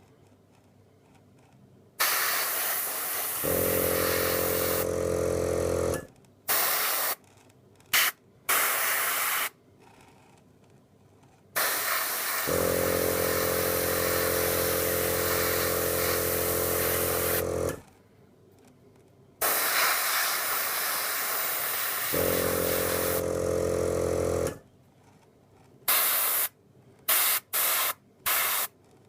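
Iwata Neo airbrush spraying in bursts of hissing air, some short taps and some held for several seconds. During the three longest bursts the Aeolian Pixie mini compressor's motor hums along, cutting in a second or so after the spraying starts and stopping when it ends.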